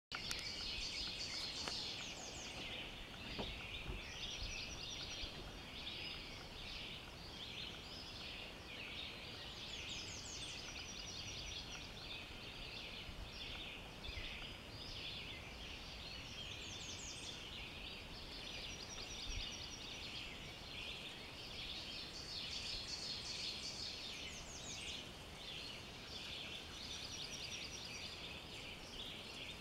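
Dawn chorus of many songbirds singing at once: overlapping high chirps, trills and whistled phrases, with quick rising sweeps recurring every several seconds.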